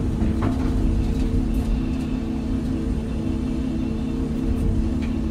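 Excavator's diesel engine running steadily under load, heard from inside the operator's cab, with a steady low hum and rumble while the bucket dumps a load of dirt into a dump truck.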